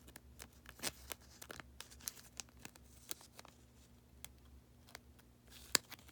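Light rustling and scattered small clicks of a trading card being handled and slid into a plastic card sleeve, with one sharper click near the end.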